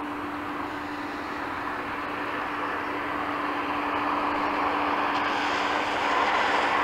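Bentley with a 6-litre twin-turbo W12 cruising gently towards the listener, a steady engine hum under tyre and road noise that grows steadily louder as the car approaches.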